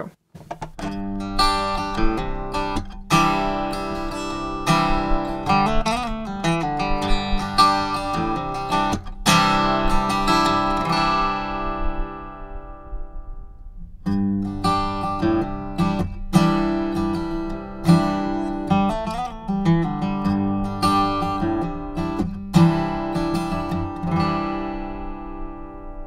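Acoustic guitar with a stick-on piezo pickup played through a JBL EON ONE column PA speaker: the same phrase twice, about thirteen seconds each. The first take goes straight into the speaker, a severe impedance mismatch (a pickup of about 1,000,000 ohms into a 40,000-ohm input) that sounds really bad; the second, from about halfway, goes through a preamp that takes care of the mismatch.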